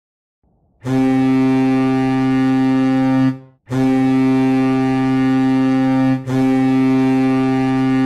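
Colorado Avalanche goal horn sounding long, deep, steady-pitched blasts. It starts just under a second in, breaks off briefly about three and a half seconds in, dips again just past six seconds, and then sounds on.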